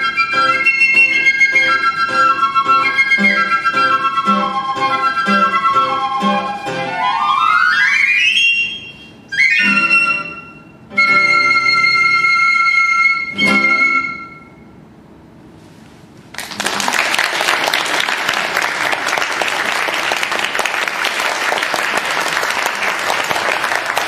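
Two piccolos with classical guitar playing the closing bars of a fast duet: quick high figures over steady plucked guitar chords, a rising run, short final chords and a held last chord. After a short pause, audience applause fills the last third.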